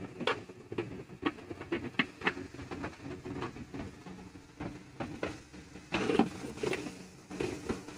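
Irregular hard plastic clicks, knocks and rattles as an electric chopper's clear plastic bowl is handled and lifted out of its cardboard box, with a busier clatter about six seconds in.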